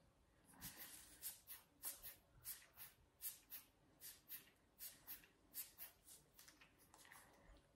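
An adult sucking repeatedly on a silicone pacifier with pursed lips, the tongue pressing the teat against the palate: a quick series of faint sucking clicks, about three a second, thinning out near the end.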